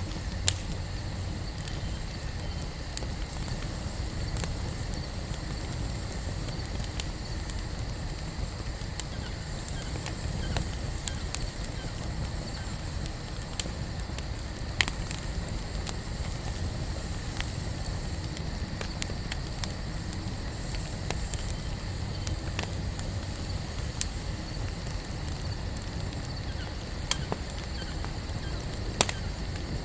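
Wood campfire burning with a steady low rush, and sharp pops and snaps every few seconds.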